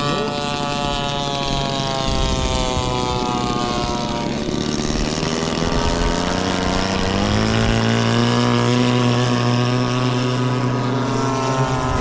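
Radio-controlled scale model airplane's gas engine and propeller running: the pitch falls over the first few seconds, then rises at about seven seconds and holds steady as it climbs.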